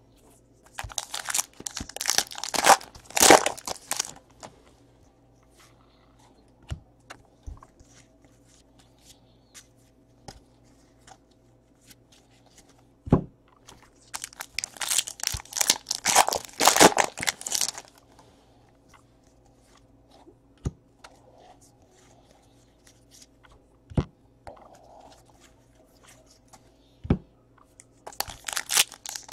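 Trading card pack wrappers being torn open and crinkled by hand, in three bursts: about a second in, around the middle, and near the end. Single light taps fall in between.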